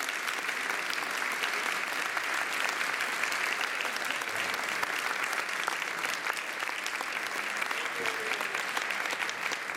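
An audience applauding, with steady, dense clapping.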